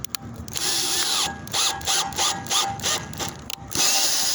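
Power drill driving a self-drilling screw into an undersized hole in a metal roof rack, run in a string of short spurts with the motor speeding up and slowing down, then a longer run near the end. It is not sounding good: the screw is binding as it cuts into the metal.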